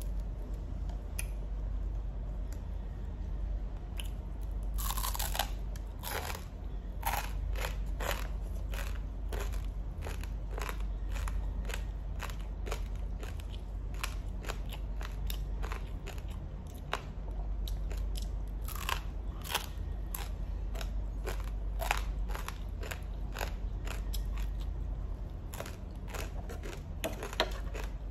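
Crisp toasted bread roll crunching as it is bitten and chewed, in many irregular crunches, with a low steady hum underneath.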